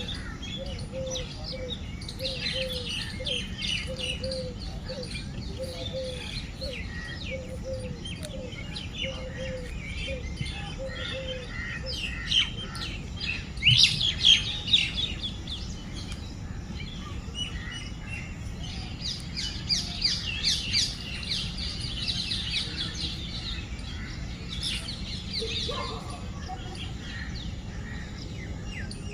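Many birds chirping and calling together in a morning chorus, with a lower call repeated about one and a half times a second through the first twelve seconds and a loud burst of chirps about halfway through. A steady low rumble runs underneath.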